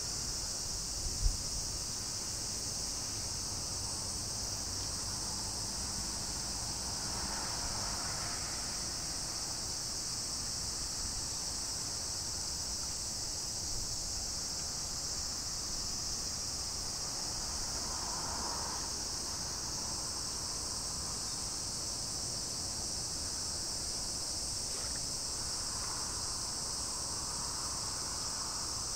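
Steady, high-pitched chorus of insects, with a single short low thump about a second in.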